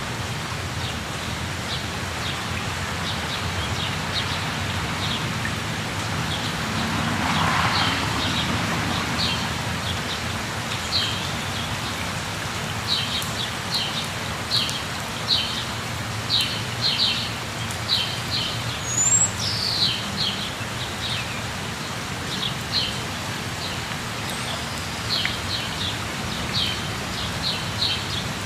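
Waterfall rushing steadily, with birds calling over it in short, quick chirps that come thicker in the second half, and one brief rising whistle about two-thirds of the way through.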